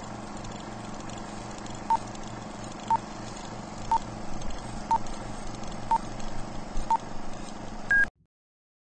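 Old film-leader countdown sound effect: a steady crackling hiss and hum with a short beep once a second, six in all, then a longer, higher beep at the end before it cuts off suddenly.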